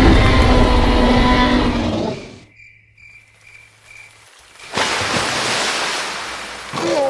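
Deep bellowing creature call, a dinosaur sound effect, lasting about two seconds. It is followed by a short run of high electronic beeps and then about two seconds of rushing noise.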